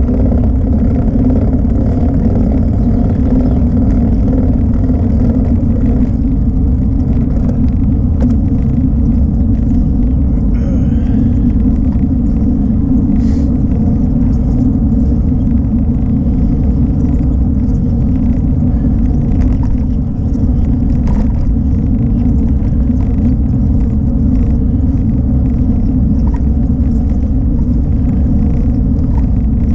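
Steady wind rumble on the microphone of a camera carried on a moving bicycle, loud and low throughout.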